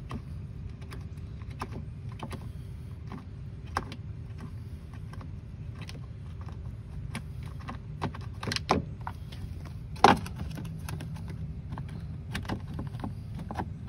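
Scattered clicks and knocks of hands handling a washing machine's plastic belt cover and its loosened bolts, with a small cluster of clicks and then the loudest knock about ten seconds in. A steady low rumble runs underneath.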